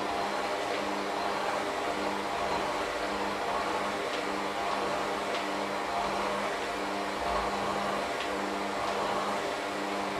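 Electric hand mixer running steadily, its beaters churning a thick flour batter in a stainless steel bowl. The motor hum wavers a little as the beaters meet the dough.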